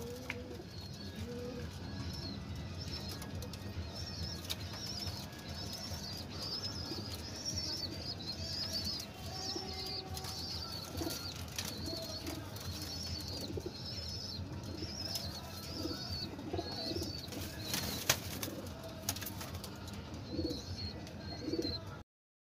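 Loft pigeons cooing in low pulses, with wing flaps and scuffling on the cage floor, while a high, quick chirping repeats in the background. There is a sharp knock about 18 seconds in, and the sound cuts off suddenly near the end.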